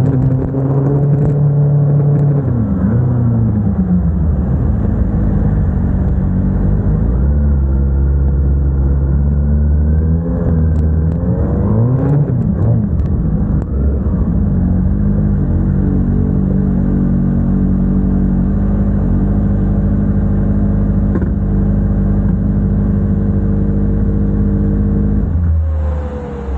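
Kawasaki ZX-6R inline-four sport-bike engine running while ridden, with a few short rises and falls in pitch in the first half as the throttle is worked. It then runs at a steady note and quietens near the end.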